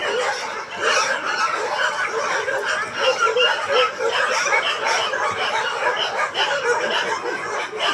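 Dense chorus of short, overlapping animal calls, several a second, from a group of animals.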